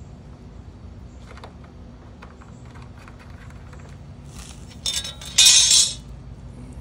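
License plate mounting hardware being handled and lined up: scattered faint clicks, then a loud clinking rattle lasting about a second, shortly before the end.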